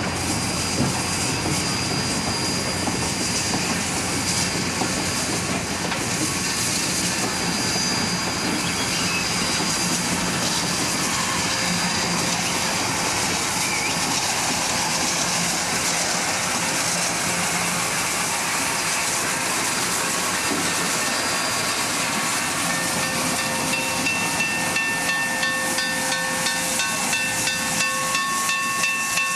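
Union Pacific 3985, a 4-6-6-4 Challenger steam locomotive, moving slowly along the track with a steady hiss of escaping steam. Near the end a few steady tones rise out of the hiss.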